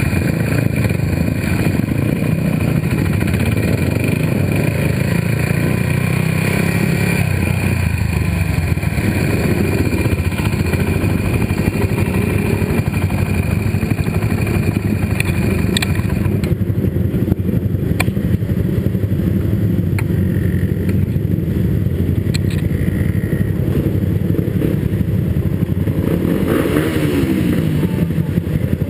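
Suzuki Raider 150 motorcycle engine running steadily at low revs, idling as the bike rolls in and stands at a fuel pump. A higher hiss drops away about halfway through.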